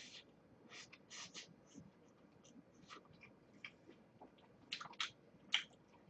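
Faint close-up chewing of a cherry-filled pastry: scattered, irregular wet mouth clicks and smacks, a few louder ones near the end.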